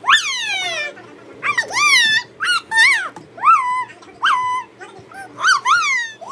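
A baby's high-pitched squeals: about a dozen short calls, each sliding quickly up and then down in pitch, coming every half second to a second.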